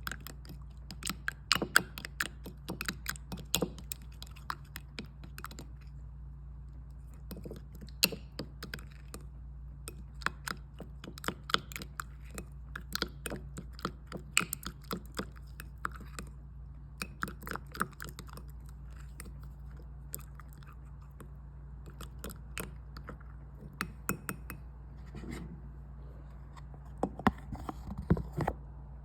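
Watery slime being squished and worked by hand: irregular wet clicks and pops in clusters, over a steady low hum.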